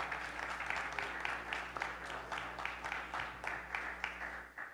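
Applause from a small gathering, a dense patter of hand claps that slowly tapers off toward the end.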